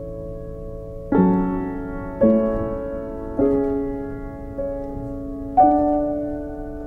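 Background music: a slow piano melody. Single notes are struck about once a second over a soft held chord, each one fading before the next.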